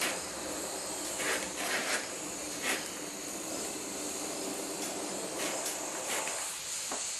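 Oxyacetylene torch flame hissing steadily during freehand cutting of steel plate, with a few light clicks.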